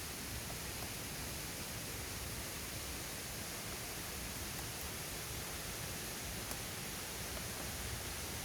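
Steady hiss with a low rumble underneath.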